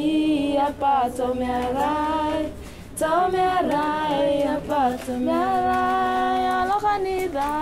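A woman singing without accompaniment: a slow melody of long held notes that slide from one pitch to the next.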